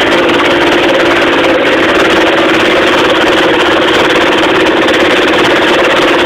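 Minibike's small single-cylinder engine running steadily under way, a loud, even drone with no change in speed.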